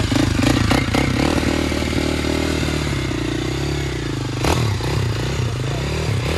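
Sport quad's engine running at idle, with a few clattering knocks in the first second and a single sharp knock about four and a half seconds in; after that the engine speed wavers up and down.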